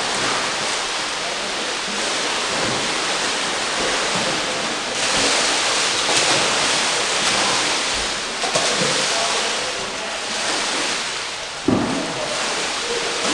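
Pool water splashing and churning around a Pyranha Sub 7 kayak and its paddle as the boat is tipped onto its side and thrown about, echoing in an indoor pool. It swells in the middle, and there is one sharp thump near the end.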